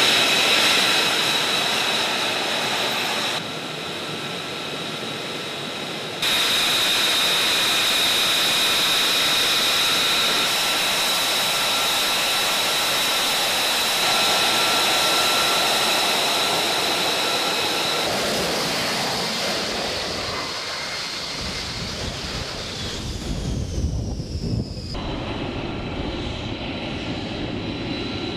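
F-35 Lightning II's single F135 turbofan whining steadily at taxi power, with several high tones. The sound cuts abruptly between takes several times. In the later part a deeper engine rumble builds, then cuts off.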